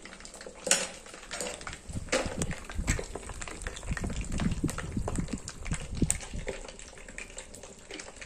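Fish pieces frying in oil in an aluminium kadhai over a wood fire, sizzling and crackling, with a few metal clinks of utensils and containers.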